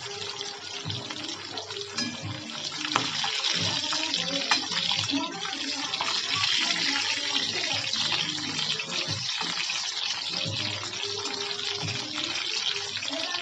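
Fish steaks sizzling in hot oil in an aluminium kadai, a steady hiss, with a few sharp taps of the spatula against the pan in the first seconds. Music with a voice plays faintly underneath.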